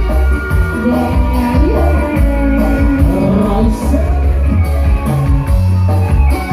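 Live electone band music: a keyboard melody over a steady bass and drum beat, with a tambourine.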